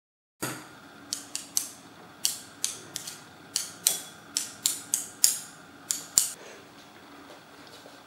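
Metal fork clicking against a ceramic bowl as cooked noodles are served into it: an irregular run of about fifteen sharp clicks over six seconds, stopping soon after six seconds in.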